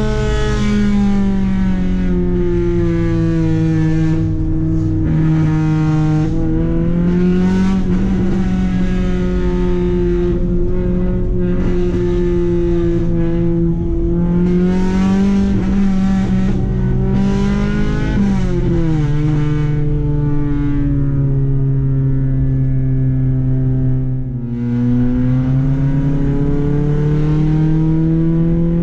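Honda Accord CD5's stock H22A Euro-R four-cylinder VTEC engine, breathing through a 4-2-1 header and 3-inch piping, heard from inside the cabin as it is driven hard. The engine note climbs and drops again and again with throttle and gear changes, with a brief lift off the throttle near the end.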